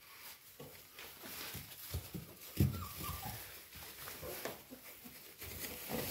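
Golden retriever puppies scrambling in a wooden whelping box lined with shredded paper: paper rustling and paws knocking and scratching on the boards, with a brief faint puppy whimper near the middle.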